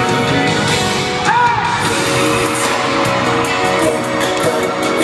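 Live pop song played loud over an arena PA, with a male lead singer over the band, recorded from the audience.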